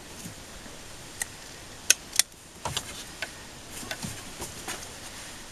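Hand hoof nippers cutting excess growth from a mouflon sheep's hoof, starting at the heel: a string of sharp, irregular snips, about eight in all, the loudest about two seconds in.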